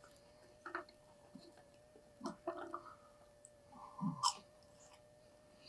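Chewing and mouth noises of people eating burgers and fries, coming in a few short, soft spells, over a faint steady hum.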